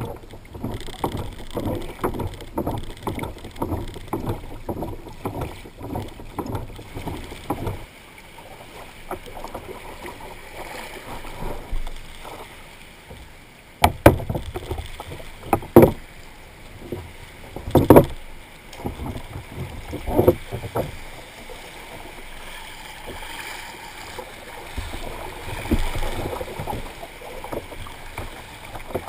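Water slapping and sloshing against a plastic kayak's hull as it moves through choppy shallows. Three loud thumps about two seconds apart come about halfway through.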